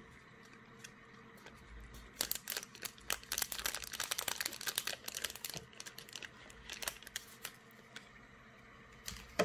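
Foil sauce sachet crinkling as it is squeezed and wrung out by hand: a dense run of crackles for about three seconds, then a few scattered ones.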